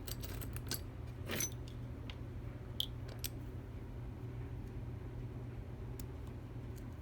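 Small metal parts and tools of a disassembled padlock being handled, giving light metallic clicks and jingles, most of them in the first second and a half, then two sharp ticks around three seconds in. A steady low hum runs underneath.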